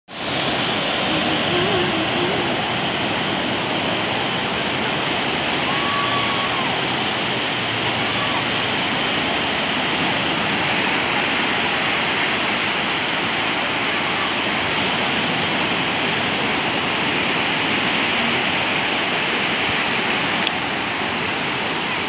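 Low surf breaking and washing up onto a sandy beach: a steady rush of waves.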